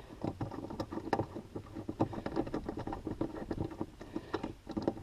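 Hand ratchet with a 14 mm socket clicking in rapid, uneven strokes as a seat-mounting bolt is backed out.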